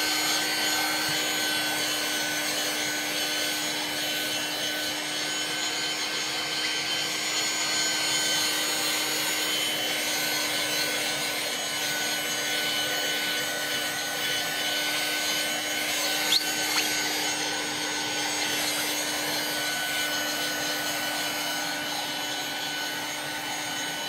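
Black+Decker Powerseries+ 16V MAX cordless vacuum, used handheld with a crevice nozzle, running steadily with a constant motor whine as it is swept over a mat to pick up spilled crumbs. There is a single small click about 16 seconds in.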